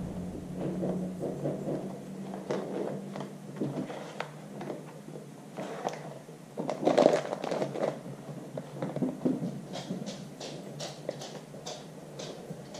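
Rustling, scraping and small clicks of a motorcycle helmet being handled and pulled on, with one louder scrape about seven seconds in. Near the end a quick run of sharp clicks comes as the chin strap is fastened.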